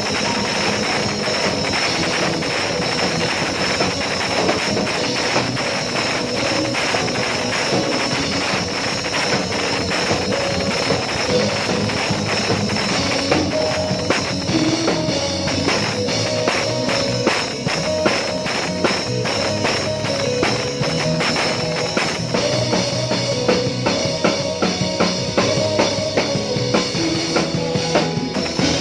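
Worship band music with a drum kit keeping a steady beat. The drum strokes stand out more sharply from about halfway through.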